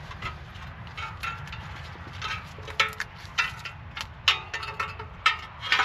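Irregular metallic clinks and taps, some with a short ring, as loose steel parts are handled and knocked together.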